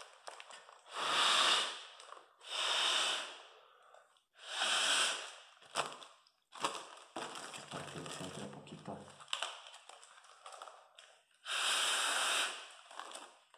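A person blowing short puffs of breath into a plastic Ziploc bag to inflate it, about four separate breathy rushes. Between the puffs comes a quieter crinkling of the plastic bag being handled.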